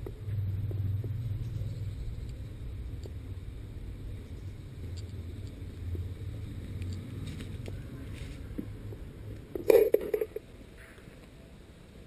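A steady low rumble that fades after about eight seconds, broken about ten seconds in by a brief cluster of sharp, loud knocks.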